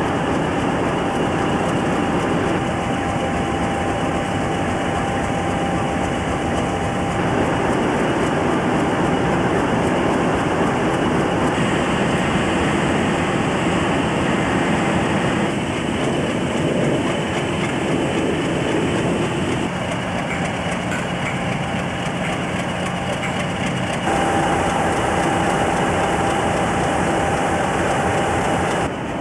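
Steady drone of diesel locomotive engines idling around a depot, with a few faint steady tones over it. The sound changes abruptly several times.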